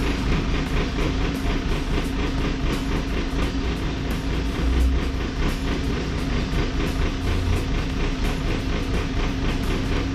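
Backhoe loader's diesel engine running steadily, with a constant hum and an even rhythmic clatter.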